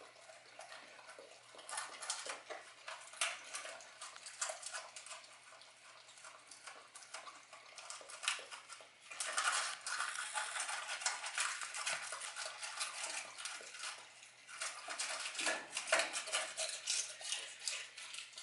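A dog eating a raw egg, shell and all, from a stainless steel bowl: wet licking and chewing, with rapid runs of small clicks from its tongue and teeth against the metal bowl, coming in spells with short pauses between them.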